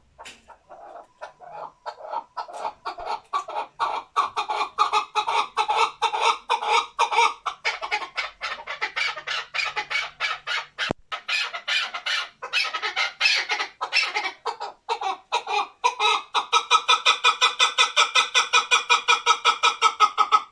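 Male chukar partridge calling: a long run of rapid, repeated chuk notes, about five a second, that becomes louder and faster near the end.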